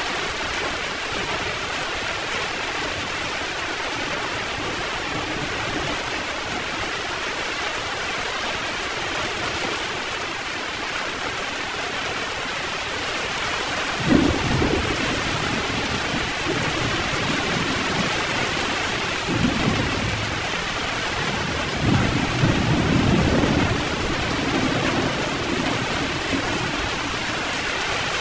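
Heavy rain falling steadily, with a sharp crack of thunder about halfway through followed by rolling rumbles a few seconds later.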